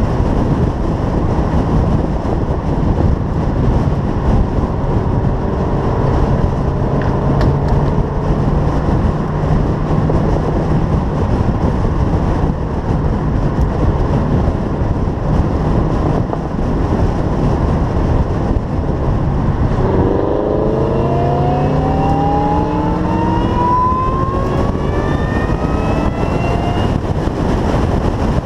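Supercharged LSA V8 of a 2013 Camaro ZL1 running under way beneath a steady rush of noise. About two-thirds of the way in, the engine note drops and then climbs steadily for several seconds as the car accelerates.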